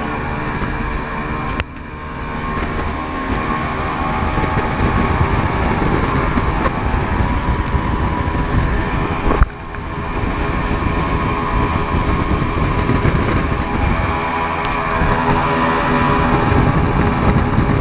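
Outboard engine on a Yellowfin 23 center-console boat running flat out at over 60 mph: a steady, loud engine drone under wind and water noise. The sound dips suddenly about a second and a half in, and again just after a sharp knock about nine and a half seconds in.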